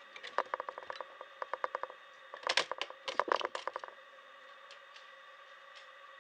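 Plastic laptop bottom cover being pried and lifted off: a quick run of small clicks, then a louder flurry of cracks and clatter about two and a half seconds in as the panel comes free.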